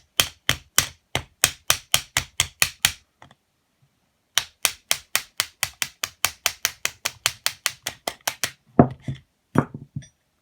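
Hammer tapping a drift to drive the rod out across the center of a Suzuki RM250 two-stroke cylinder: two runs of quick, even metallic taps, about three to four a second, with a short pause between them. Near the end come two heavier knocks.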